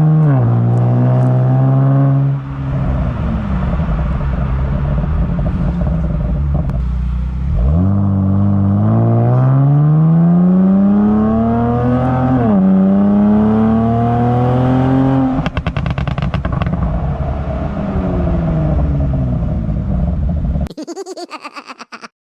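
Kia Stinger GT's twin-turbo V6 exhaust, pop-and-bang tuned, accelerating hard with the pitch climbing and dropping back at each upshift. On lift-off the exhaust crackles in a quick run of pops, then the note falls away as the car slows. The sound cuts off abruptly near the end.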